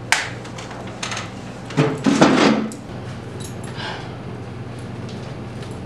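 A person moving about and handling things: a sharp click, a few knocks about a second in, then a brief, louder rustling clatter about two seconds in, followed by faint ticks, over a steady low hum.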